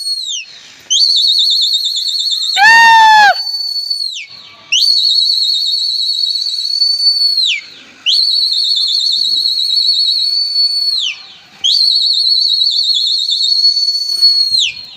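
Shrill whistle blasts used to call and fly pigeons, four long ones of about three seconds each with short gaps between them, each ending in a falling slide. A brief, loud downward-sliding whistle cuts in about three seconds in.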